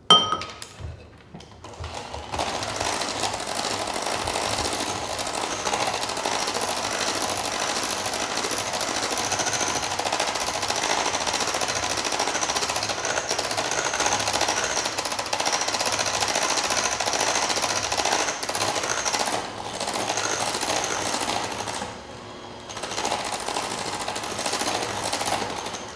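Electric hand mixer running steadily, beating melted white chocolate into cream cheese cheesecake batter in a glass bowl. It starts about two seconds in, just after a sharp knock, and drops away briefly near the end before running on.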